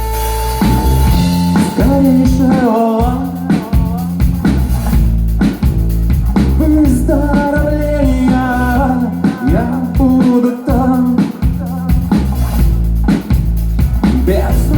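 Music: a rock-style song with a regular beat and a melodic lead line over it.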